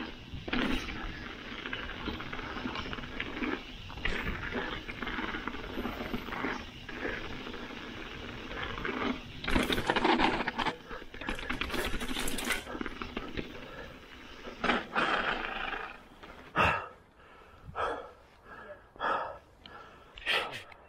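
Mountain bike riding down a dirt woodland trail: tyres rumbling over earth and leaf litter with wind on the microphone, and a louder spell of clattering about halfway through as the bike crosses rough ground. Near the end the rumble gives way to a few short separate scrapes as the bike slows to a stop.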